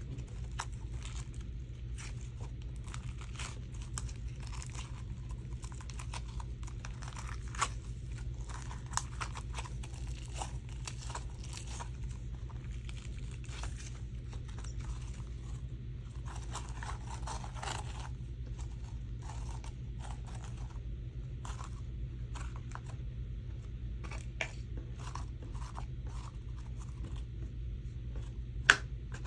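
Slime being squished and stretched by hand, giving a steady run of small crackles, pops and crunches, with one sharper snap near the end.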